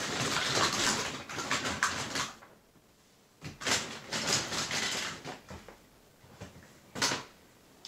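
Hard plastic toy figures and parts clattering and a plastic bag rustling as hands rummage through a crate of toys, with a few sharp plastic clacks in the second half, the loudest about seven seconds in.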